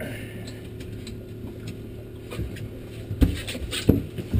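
Boat engine idling, a steady low hum, with a few sharp knocks and bumps in the last second or so.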